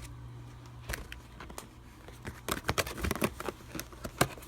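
A computer mouse's packaging being handled and opened by hand: scattered sharp clicks and rustles, with a quick cluster of snaps a little past the middle. A low hum stops about a second in.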